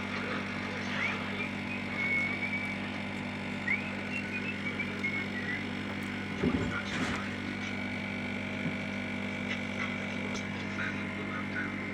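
Steady low electrical hum, with a single knock of something being handled about six and a half seconds in.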